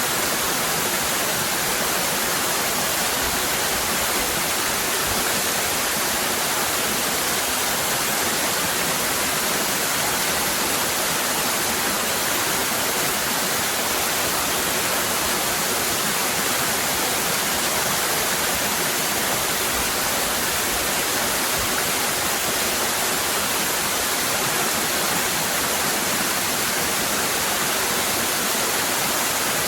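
Waterfall cascading with a steady, even rush of water that does not change.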